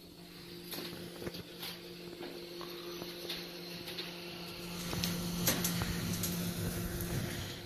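Footsteps on a steel-grating walkway, heard as irregular light clicks over a steady low hum. A louder low rushing noise comes in at about five seconds and fades near the end.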